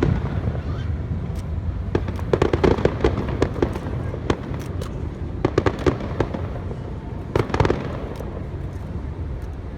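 Aerial fireworks going off: groups of sharp bangs and crackles, about two seconds in, about five and a half seconds in and about seven and a half seconds in, over a steady low rumble.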